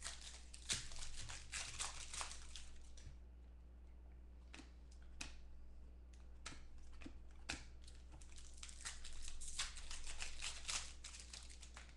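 Foil trading-card pack wrapper crinkling and tearing as it is opened by hand, with cards clicking and sliding against each other. The crinkling is dense for the first few seconds, thins to a few single clicks, and picks up again near the end, over a low steady hum.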